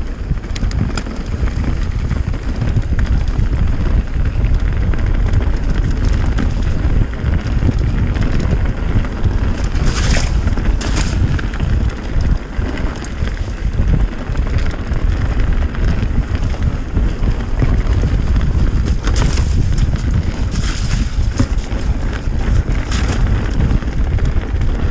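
Wind buffeting an action camera's microphone during a mountain bike descent, with the steady rumble of tyres on a wet, muddy trail and the rattle of the bike over rough ground. Brief louder bursts of hiss come about ten seconds in and again several times near the end.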